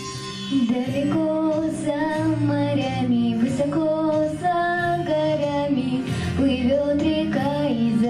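A girl singing a song into a handheld microphone over a recorded backing track. Her voice comes in about half a second in, after the instrumental introduction.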